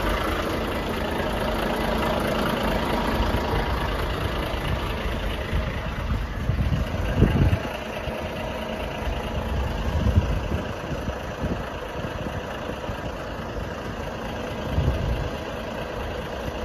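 A van's engine idling steadily close by, with a few louder low surges about seven, ten and fifteen seconds in.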